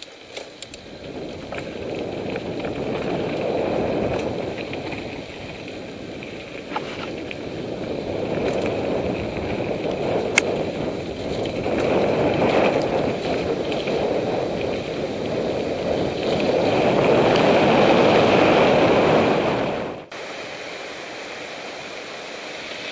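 Rushing noise of a mountain bike ride on a helmet camera: wind over the microphone and tyres rolling on a dirt trail, swelling and easing with speed, with a single sharp click near the middle. About 20 seconds in it drops suddenly to a quieter, steady hiss.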